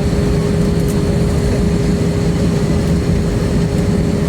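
Steady cabin drone of an Airbus A320-232 taxiing, its IAE V2500 engines and air conditioning running, with a constant hum.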